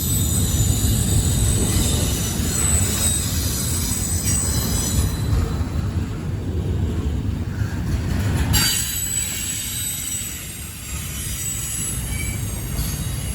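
CSX intermodal freight train cars rolling past, their steel wheels screeching and squealing in several high, wavering tones over a steady low rumble. A sharp clank comes about eight and a half seconds in, after which the rumble eases while the squeal continues.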